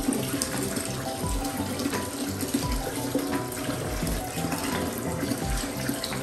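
Water running steadily in a bath, with background music playing over it.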